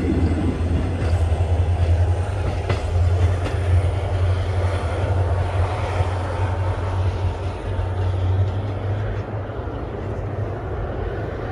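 Three-car passenger train running along the rails with a steady low rumble and a few wheel clicks over the rail joints, slowly fading as it pulls away.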